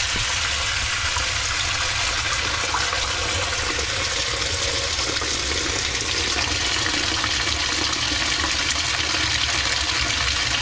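Steady rush of water pouring in through a pipe and filling a homemade plastic sieve filter box.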